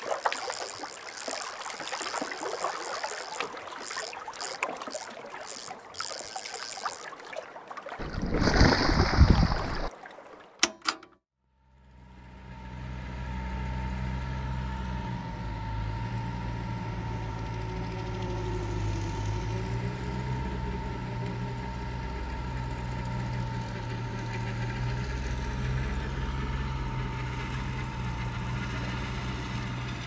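Water splashing as a fish is released, with a bigger splash about eight seconds in. Then a tractor engine fades in at about twelve seconds and runs steadily, with a low hum and a steady whine.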